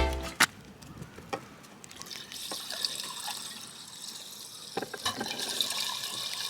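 Gasoline being poured from a can into a snowblower's fuel tank: a steady trickling pour that starts about two seconds in. A few light knocks from handling the can and filler come before it.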